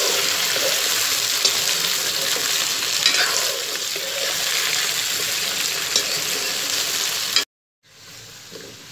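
Taro corm and potato chunks shallow-frying in mustard oil in a metal kadhai: a steady sizzle, with a metal ladle scraping and clicking against the pan as they are stirred. The sound cuts out for a moment about seven and a half seconds in, and the sizzle comes back quieter.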